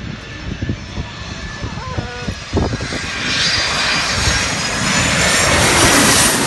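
Twin-engine jet airliner on final approach, its engine noise growing louder as it comes in low overhead. From about three seconds in, a rising rush of jet noise with a high turbine whine builds to its loudest near the end.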